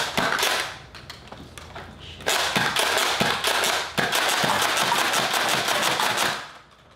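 Nerf Doomlands Double Dealer, a pump-action spring blaster, being primed and fired over and over, each pump firing two foam darts at once. After a short burst at the start and a lull, a rapid run of plastic clacks and pops, about three a second, lasts from about two seconds in until near the end.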